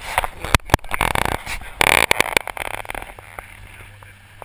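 Small boat at sea: a string of sharp knocks and two short rushes of noise in the first two seconds, dying down to a faint, steady low engine hum.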